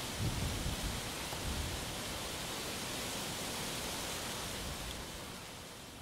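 Steady outdoor rushing noise with low rumbling thumps in the first second and a half, fading away near the end.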